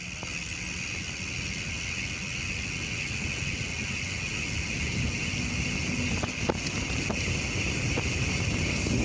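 Wind rumbling on the microphone of a mountain bike riding off-road, over a steady high hiss, with a few light clicks from the bike about six to seven seconds in.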